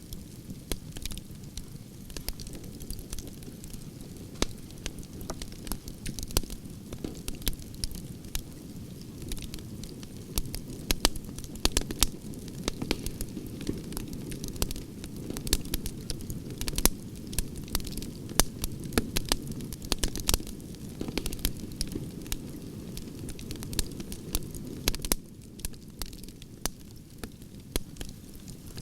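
Wood campfire with burning logs crackling: many sharp pops and snaps over a steady low rumble of the flames.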